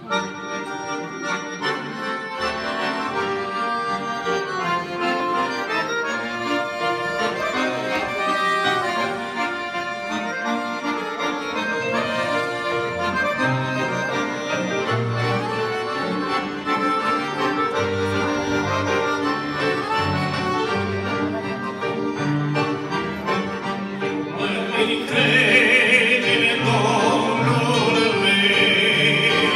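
Two accordions playing a melody over a steady bass line. Near the end the sound grows louder and brighter as men's voices come in singing.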